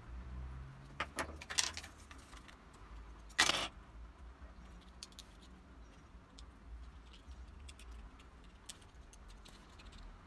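Small metal and plastic parts clicking and clinking as they are handled and fitted together by hand, with one louder clatter about three and a half seconds in and faint ticks after.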